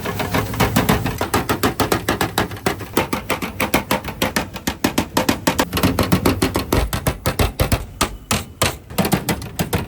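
Rapid chopping of chicken for a roll: a blade striking a board several times a second in an even run.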